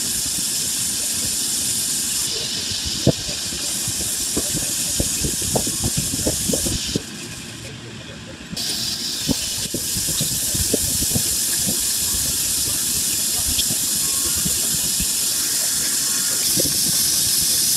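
Grinding wheel hissing steadily against the helical lobes of a screw air compressor rotor as it turns in the grinding machine, with scattered light knocks. The hiss drops away for about a second and a half near the middle, then returns.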